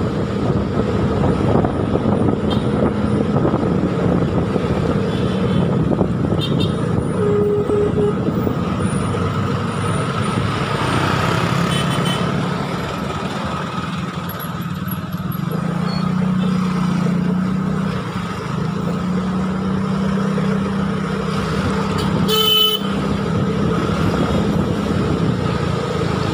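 A motorcycle engine runs steadily while riding through city traffic, under a constant rush of road noise. A vehicle horn toots briefly about twenty-two seconds in.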